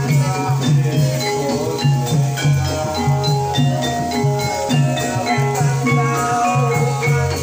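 Javanese gamelan-style music accompanying a kuda kepang dance: quick melodic runs of struck, tuned percussion over a low note pulsing about twice a second.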